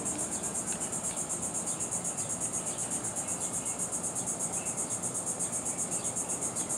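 A steady, high-pitched chorus of insects, pulsing rapidly and evenly.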